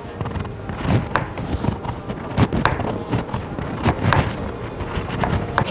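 Hands kneading a ball of soft flour dough on a wooden cutting board: irregular soft thumps and pressing, rubbing sounds, a few a second.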